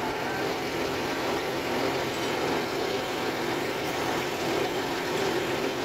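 Truck engine running steadily, a constant mechanical drone with no change in speed.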